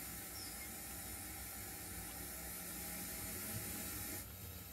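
Steady steam hiss over a low hum from an O gauge model steam tank locomotive running slowly; the hiss cuts off sharply about four seconds in.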